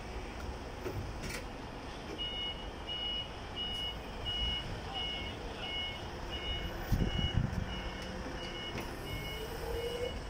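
JAC electric reach truck's warning beeper sounding as the truck moves, a steady series of short two-tone beeps about one and a half a second, starting about two seconds in. A brief low rumble comes about seven seconds in, and a rising whine near the end.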